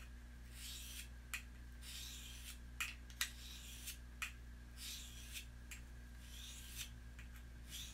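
Faint rasping strokes of a blade being sharpened by hand, about one stroke a second, with a few light clicks between strokes.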